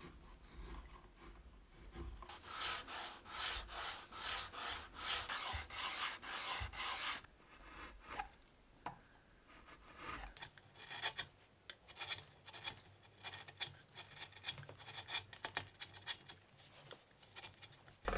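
Steel chisel paring wood by hand in a steady run of scraping strokes, two or three a second. About ten seconds in it gives way to lighter, quicker short cuts and small clicks.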